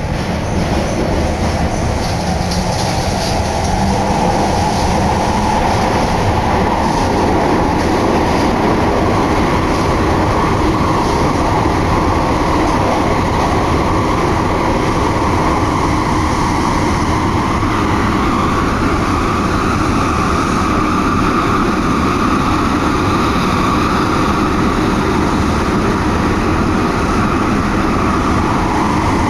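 Running noise heard inside a car of an Osaka Nagahori Tsurumi-ryokuchi Line linear-motor subway train between stations: a steady rumble and rush with wheel noise. A whine in it rises in pitch about two-thirds of the way through.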